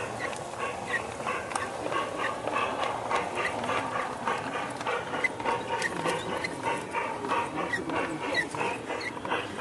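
Small-scale G-gauge model train cars rolling along the track, with rapid irregular clicking from the wheels over rail joints and short high squeaks over a steady running noise.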